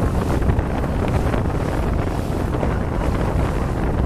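Wind buffeting the microphone on a moving motorboat, over the steady running of the boat's engine and the wash of the river water.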